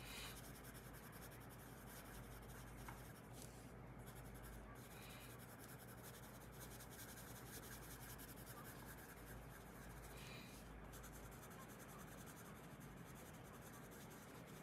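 Faint scratching of a yellow colored pencil shading small areas on paper.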